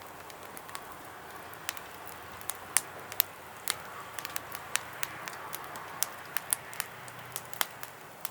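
Wood fire crackling in a fire pit, irregular sharp pops over a soft steady hiss.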